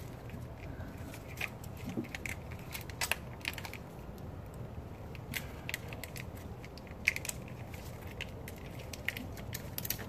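Irregular small clicks, snaps and rattles of a wiring harness and its mounting bracket being handled and pushed about by gloved hands, over a low steady hum.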